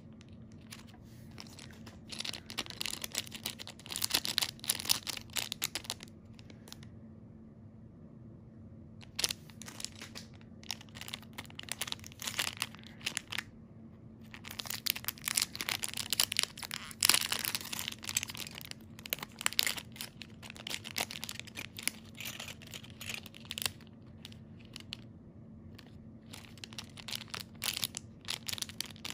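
Thin clear plastic jewelry bags crinkling and tearing as they are handled and opened, in irregular bursts with short pauses between them.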